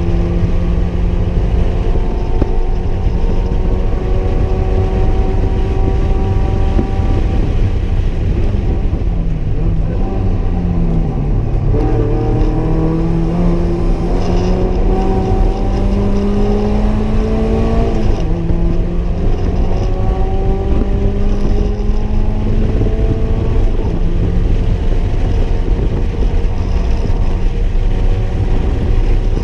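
Mazda MX-5's four-cylinder engine under hard track driving, heard from inside the cabin over loud road and tyre rumble. The note runs at high revs, falls away near the middle, then climbs steadily under acceleration, drops in one step at a gear change, and climbs again.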